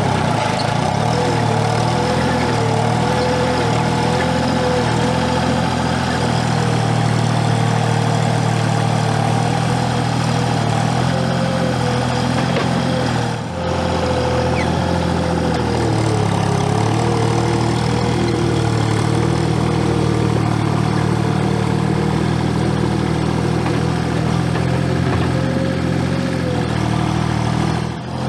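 Gehl 4835 SXT skid steer's diesel engine running steadily under work, with a high whine above it that wavers up and down in pitch. The sound drops out briefly about halfway through.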